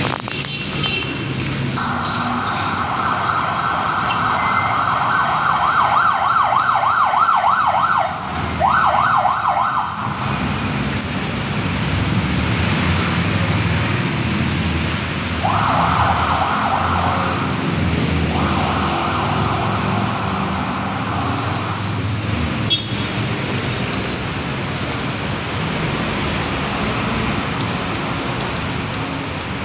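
Siren yelping in fast up-and-down sweeps, from about two seconds in to about ten seconds and again from about fifteen to twenty-two seconds, over steady street traffic noise.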